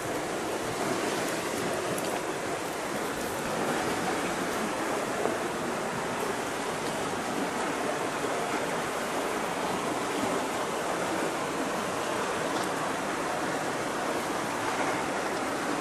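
Light rain falling outdoors: a steady, even hiss, with a few faint ticks.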